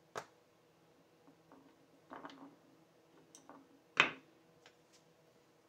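Hand tools such as screwdrivers being handled on a wooden workbench: scattered clicks and clinks, with one sharp knock about four seconds in as the loudest.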